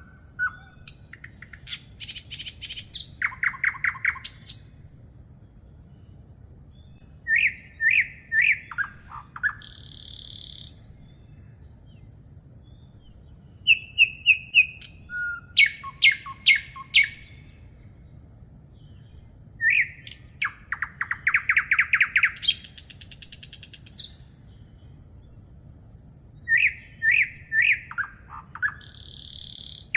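Songbirds singing: short repeated phrases of chirps and slurred whistles alternating with fast trills, a new phrase every few seconds, over a faint steady low background noise.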